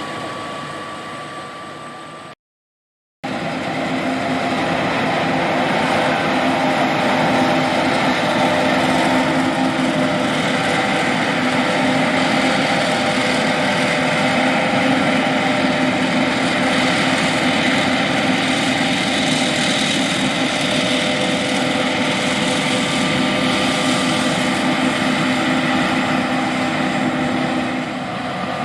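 John Deere S780 combine harvester running steadily while harvesting soybeans, a constant engine and machinery drone with a steady hum. The sound fades and cuts out for under a second about two seconds in, then returns louder.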